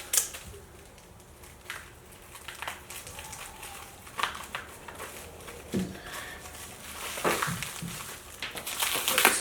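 Packaging being pulled and torn off a heavy bench vise: irregular crinkling and rustling, with a few dull knocks.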